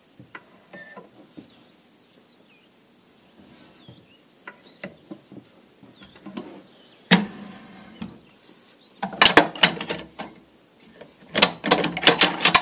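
Metal clanking and knocking from work at a hand-operated tube bender bending steel tubing. A few light clicks, a single sharp knock about seven seconds in, then two runs of rapid clanks, one about nine seconds in and one near the end.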